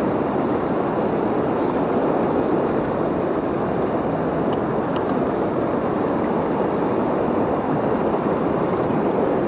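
Fast river current rushing steadily over rocks and riffles.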